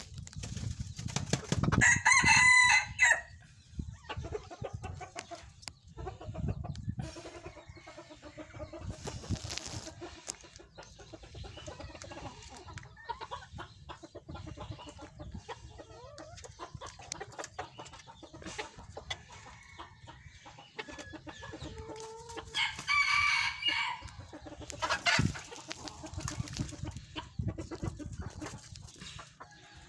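A rooster crows twice, once about two seconds in and again about 22 seconds in, with hens clucking in between.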